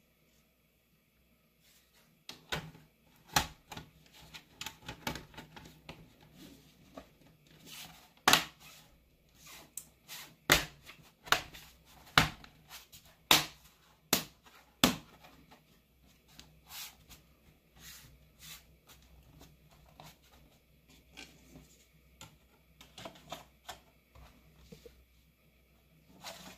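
Hands working on an opened laptop: scattered sharp clicks and taps of plastic parts and tools against the case, thickest and loudest around the middle.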